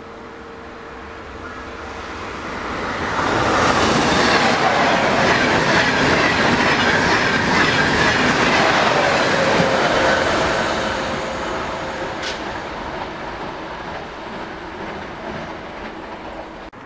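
A TGV POS high-speed electric trainset passing at speed. Its rush of wheels on rail and air builds over a couple of seconds, stays loud for about seven seconds, then fades away as the train recedes.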